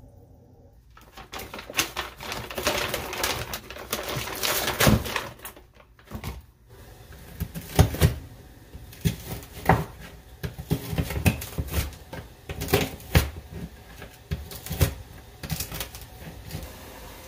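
Hands squeezing and turning wet cooked noodles in a plastic colander, a dense rustling handling noise; then, after a brief break about six seconds in, a kitchen knife cutting fish fillets into chunks on a plastic cutting board, sharp knocks about every half second.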